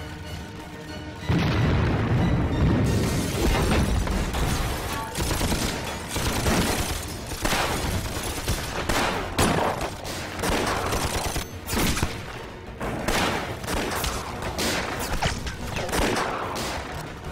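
A loud explosion about a second in, then a battle's worth of gunfire, many shots in quick succession, over background music.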